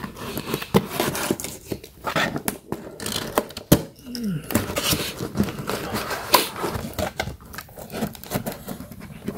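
Cardboard shipping box being opened by hand: packing tape slit and torn, flaps pulled open, with a run of cardboard scrapes, rustles and sharp clicks.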